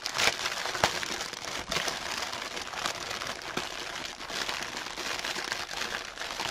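Plastic packaging being handled, a steady crinkling and rustling with several sharp crackles. These are the plastic bags of diamond-painting drills being pulled out of the kit box.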